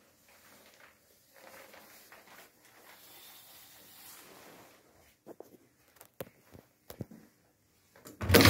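Faint rustling handling noise and scattered sharp clicks from a phone camera being carried and moved around, then a sudden loud burst of noise right near the end.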